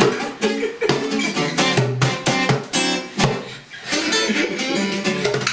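Acoustic guitar strummed and picked, a quick run of chords and single notes.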